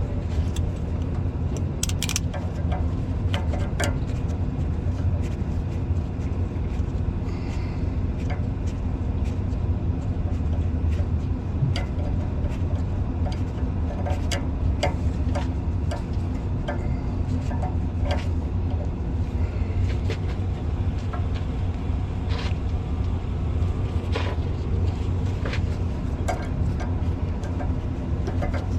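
Scattered small clicks and knocks of hand work refitting hold-down clamps, over a steady low rumble.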